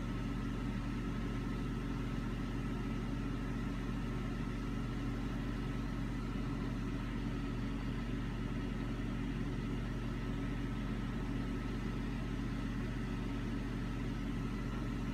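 Steady low hum with a faint higher whine, unchanging throughout.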